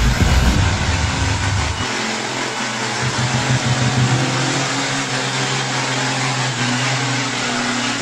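Diesel engine of a loaded log truck running under load as it crawls along a rough dirt road: a steady low engine note with a rising pitch near the end.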